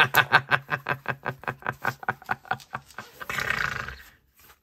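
A man laughing hard: a fast run of pitched ha-ha pulses, loudest at first and fading over about three seconds, followed by a short rush of breathy noise.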